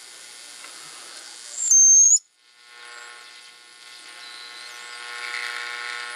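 Homebrew 40-meter regenerative receiver playing through its speaker: hiss and static, broken about two seconds in by a loud high whistle that steps down in pitch and cuts off suddenly. After a moment's quiet the hiss comes back with a steady buzzy tone that swells near the end.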